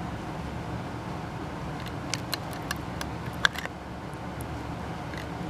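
Steady low background hum, with a few light clicks and taps about two to four seconds in.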